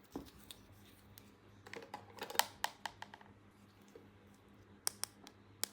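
Small plastic toy pieces being handled: scattered sharp clicks and taps, with a quick flurry of them in the middle and a few single clicks near the end.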